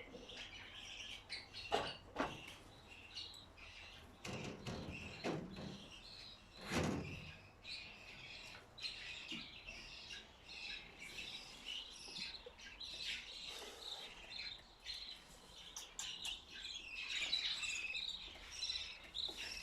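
Many small cage birds chirping continuously in quick overlapping calls. A few short knocks come through in the first seven seconds, the loudest about two and seven seconds in.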